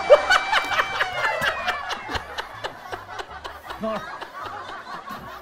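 Several people laughing hard, in quick bursts throughout. A held electronic tone from an added sound effect fades out about two seconds in.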